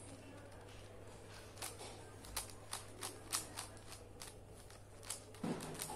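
Plastic clicks and clacks of a Megaminx puzzle's faces being turned by hand, sharp and irregular, a few a second.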